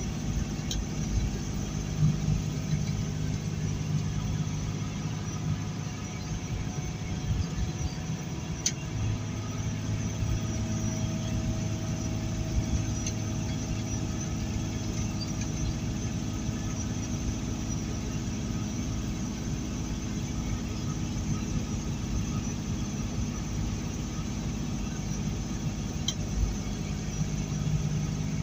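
Heavily loaded semi truck running steadily at highway speed: a low, even engine drone with tyre and road noise, and a few faint clicks.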